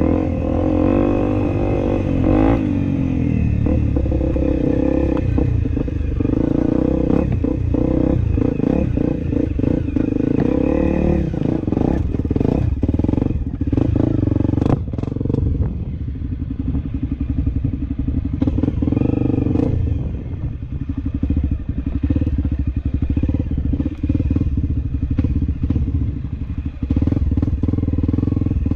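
Honda CRF250L's single-cylinder four-stroke engine running steadily as the trail bike is ridden on dirt. A run of clattering knocks comes about halfway through.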